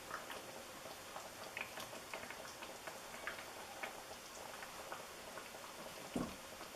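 Faint scattered clicks and light scrapes of a serving utensil against a pan and plate as ravioli in cream sauce is dished up, with a soft thump about six seconds in.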